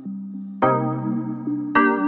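Background music: keyboard chords struck twice, about half a second in and again near the end, each ringing on and fading.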